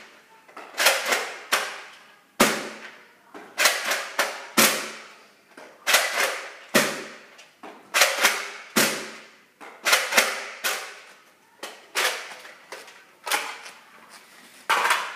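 Nerf Recon CS-6 spring-powered dart blaster being primed and fired over and over: a string of sharp plastic clacks and thumps every second or so, often two or three close together, each ringing briefly off the hard floor and walls.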